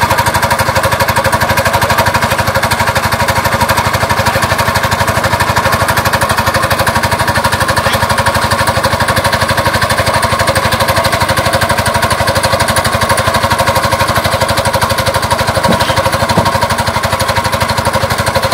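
Small engine of a water pump running steadily with an even, rapid beat, pumping water out of a pond.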